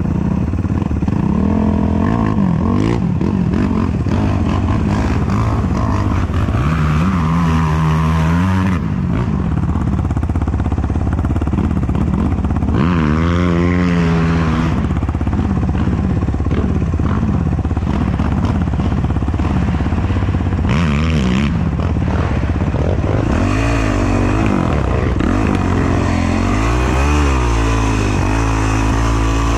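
Racing ATV engine running at a low idle while stopped, with short throttle blips a few times, the revs rising and falling; near the end it revs up and down repeatedly as the quad creeps off.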